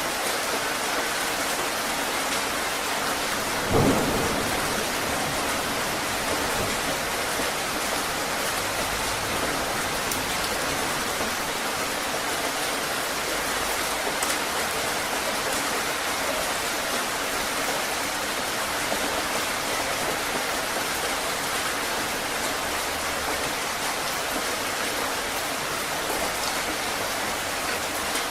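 Heavy rain falling steadily, with a single short, loud clap of thunder about four seconds in.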